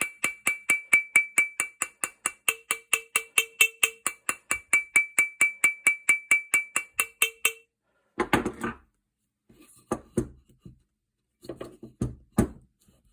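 A nylon- or PTFE-faced hammer taps quickly and evenly, about six times a second, on a steel shotgun action, which rings with a high tone at each blow. The tapping sends vibration around a rust-seized, burred plate screw to free it. The tapping stops a little past halfway, and a few irregular knocks and handling sounds follow.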